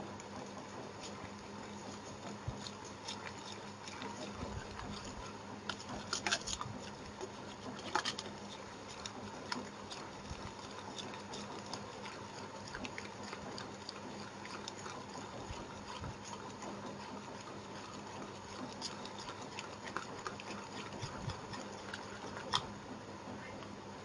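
Wire balloon whisk beating powdered milk into an egg-and-sugar batter in a ceramic bowl: a soft, steady patter broken by scattered light clicks of the wires against the bowl, a few louder ones about six to eight seconds in.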